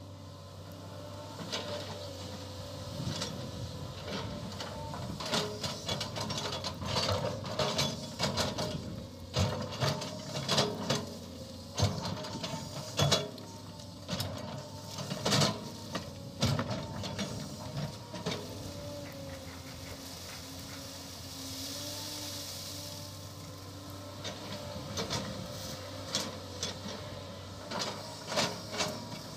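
SANY SY215 hydraulic excavator's diesel engine and hydraulics running steadily under digging load, the drone rising and falling in pitch as the arm works. Frequent sharp clanks and knocks of the bucket and linkage come through it, fewer for a few seconds past the middle, with a brief hiss around then.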